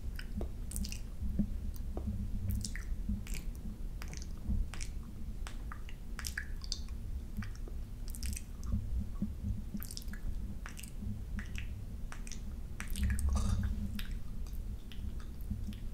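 Close-up ASMR lens licking: tongue and lips working wetly on a camera lens, giving many irregular wet clicks and smacks over a low rumble.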